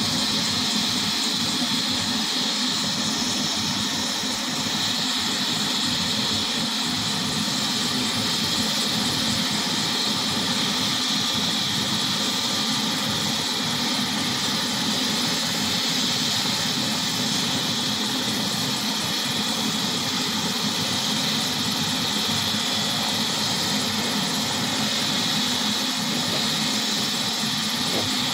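Turbine helicopter running on the ground with its main rotor turning, a steady engine whine over rotor noise that holds even throughout without spooling up for liftoff.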